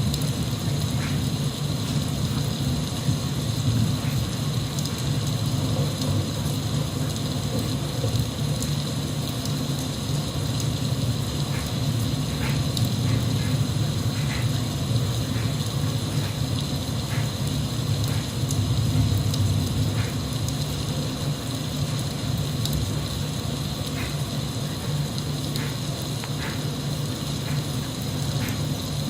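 Steady rain sound, an even hiss over a low steady rumble, with scattered drops ticking throughout.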